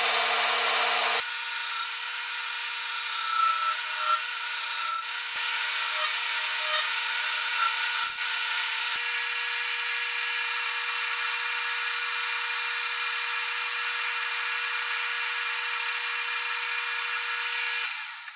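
Metal lathe running, turning a steel rifle barrel: a steady motor whine with the hiss of the cut, and a few short squeals from the cutting tool between about 3 and 8 seconds in. It fades out at the very end.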